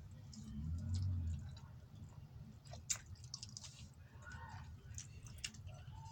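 A person chewing a mouthful of food, with wet mouth clicks and smacks scattered through, and a dull low thump about a second in.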